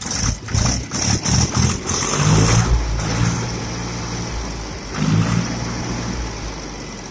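Mahindra 275 DI TU tractor's three-cylinder diesel engine: a run of loud, rough pulses for the first two seconds, then running steadily, picking up again briefly around five seconds in.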